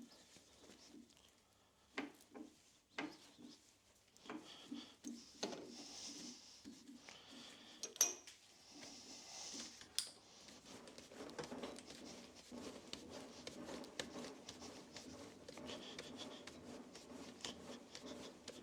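Small metal parts and hand tools clinking and clicking, with a few sharp clicks in the first half and a steady scraping rub from about the middle on, as when an M6 thread is being cut by hand with a tap.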